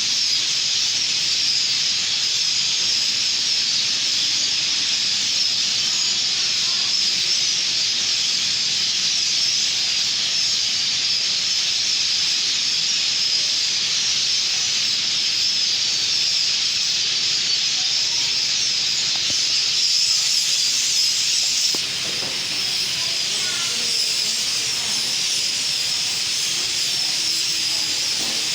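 A huge flock of birds chattering and calling all at once, blending into one dense, steady, high-pitched din, a little quieter from about three quarters of the way through.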